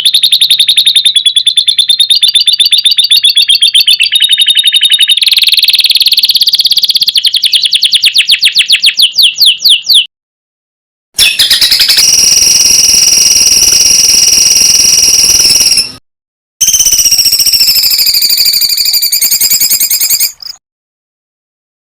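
Songbird song from an 'isian' tutor recording: loud, high-pitched rapid trills of notes repeated many times a second. The song comes in spliced segments that cut off abruptly, about ten seconds in and again near sixteen and twenty seconds.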